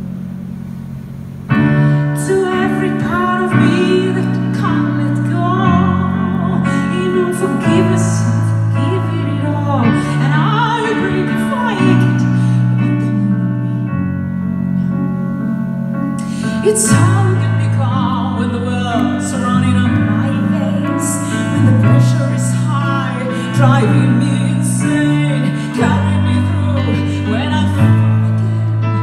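An operatic female soprano singing live with vibrato over held chords on a Nord Stage 3 stage keyboard. Only the chords sound at first; the voice comes in about a second and a half in, and the music gets louder there.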